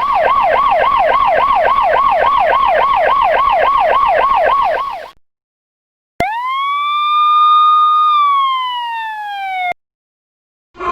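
Two electronic siren sounds. First a yelp siren sweeping rapidly up and down, about four times a second, cutting off about five seconds in. After a second's pause, a single siren tone rises quickly, holds, then slides slowly down and stops.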